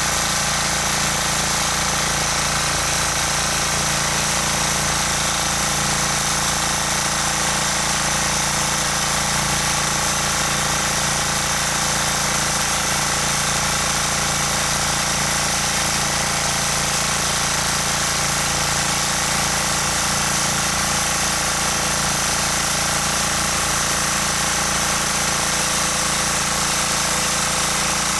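Rotakt walk-behind rotary tiller's engine running steadily under load as its tines till the soil. It is a continuous, even engine drone.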